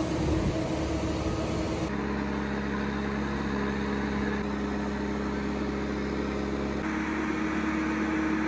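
A boatyard travel lift's engine and hydraulics running steadily as the hoist raises a yacht in its slings. It is an even mechanical drone whose tone shifts abruptly twice, about two seconds in and again near the end.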